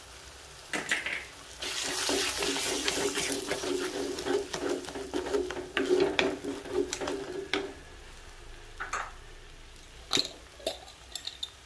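Wooden spatula stirring and scraping an egg into onion-tomato masala in a clay cooking pot: a run of scattered clicks and scrapes. From about two seconds in to about eight seconds in, a steady hissing rush with a low hum is the loudest thing.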